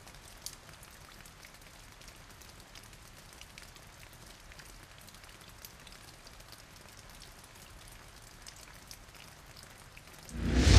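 Faint scattered light ticks and taps over a quiet background hiss. Near the end, loud music swells in quickly.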